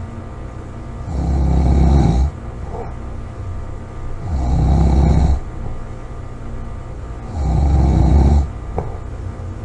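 A woman snoring loudly: three deep snores about three seconds apart, each lasting about a second, swelling and then cutting off sharply, with quieter breathing between.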